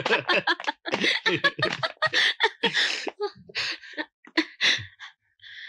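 A man and a woman laughing and gasping in quick, breathless bursts as they tussle playfully. The bursts thin out to a last few breaths near the end.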